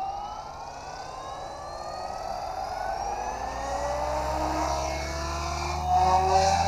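Goblin 500 Sport electric RC helicopter spooling up: a motor and rotor whine rising steadily in pitch and getting louder. It jumps in level about six seconds in, as the helicopter lifts off.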